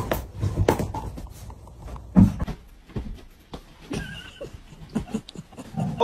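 Pets playing: short animal vocal sounds over scuffling and soft thumps, with one louder thump a little past two seconds in.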